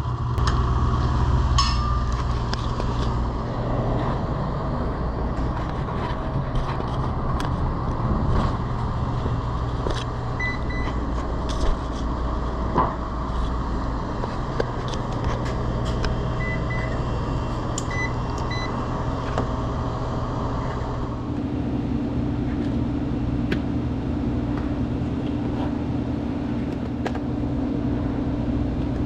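Commercial refrigerator's condensing unit (compressor and condenser fan) running with a steady mechanical hum, with scattered light clicks and taps. About 21 seconds in the sound changes: the higher part of the hum drops out and a new steady lower hum takes over.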